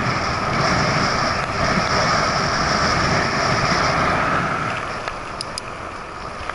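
Steady rush of wind and tyre noise from an ElliptiGO elliptical bike rolling along asphalt, picked up by a camera riding on it. It grows quieter after about four and a half seconds as the bike slows toward the beach entrance, with two faint ticks near the end.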